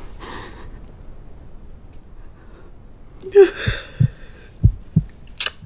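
A woman crying: a faint breath, then a shaky sob about three seconds in, followed by a few short catches of breath and a quick sniff near the end.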